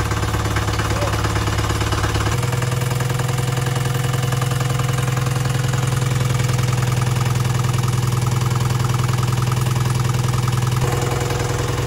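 Bukh DV20 two-cylinder marine diesel running steadily on freshly fitted rubber motor mounts. Its speed steps up about two seconds in, then shifts again near the end. It runs smoothly with little vibration.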